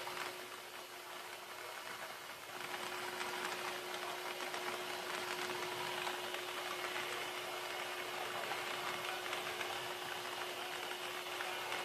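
Lottery ball-drawing machine running: a steady motor hum with the numbered balls rattling and clicking against the chamber as they are mixed. The rattling gets louder about two and a half seconds in.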